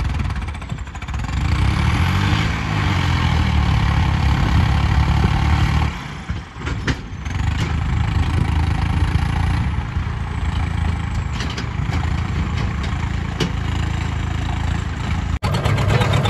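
Swaraj diesel tractor engine running under load as it pulls two loaded straw trailers, with a short dip in the sound about six seconds in. Near the end it is heard close up from the driver's seat.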